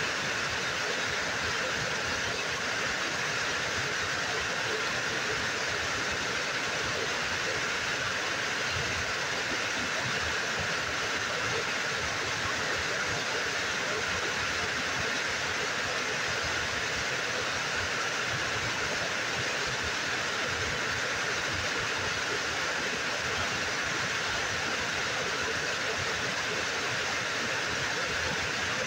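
Low, wide waterfall pouring over a rock ledge into a pool: a steady, unbroken hiss of falling water.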